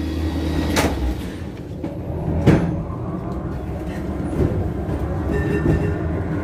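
Heritage tram running slowly with a steady low rumble, and two sharp clacks of its wheels on the track, the louder one about two and a half seconds in.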